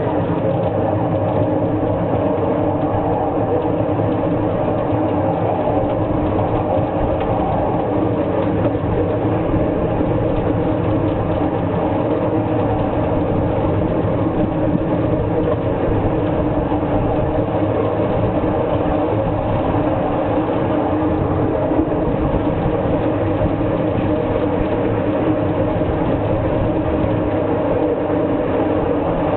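A 16-gauge miniature train, converted to run on a golf-cart electric motor and batteries, rolling steadily along its track. It gives a steady mechanical hum with the running noise of the cars and wheels.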